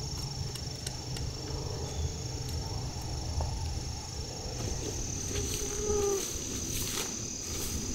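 Woodland ambience: a steady high-pitched drone of insects such as crickets over a low rumble, with a few short, faint chirps about five to six seconds in.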